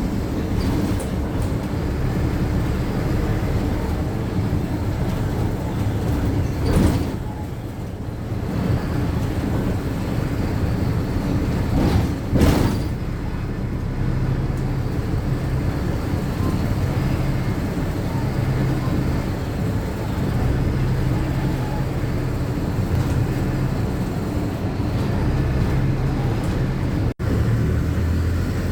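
Inside a city bus on the move: steady engine drone and road rumble from the cabin. Two brief loud whooshes come about 7 and 12 seconds in, and the sound drops out for an instant near the end.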